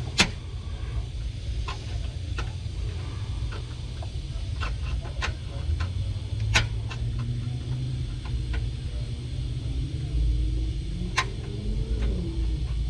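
Scattered sharp clicks and knocks, with the loudest near the start and about two thirds of the way through, over a steady low rumble. A faint tone rises and then falls near the end.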